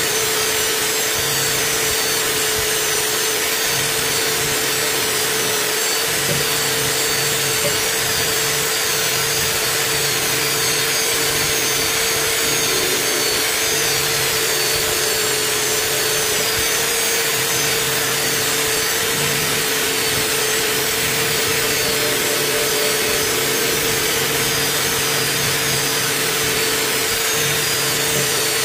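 Electric drill running with a wire wheel brush pressed against rusty metal, scrubbing off the rust: a steady motor whine under a rough, continuous scraping hiss.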